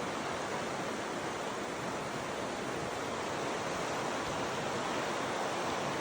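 Kern River water rushing past in a steady, even flow.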